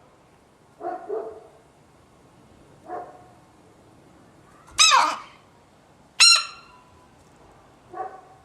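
Five short, sharp sounds from a dog. The loudest two come about five and six seconds in and have a high, clear pitch.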